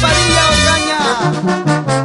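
A brass band playing, with tubas carrying a stepping bass line under trumpets and baritone horns; a few horn notes slide down in pitch about halfway through.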